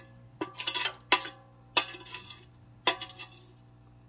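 Metal fork scraping and clinking against the inside of an enamel pot as it rakes out loose potting soil: about six sharp clinks, each leaving a brief metallic ring.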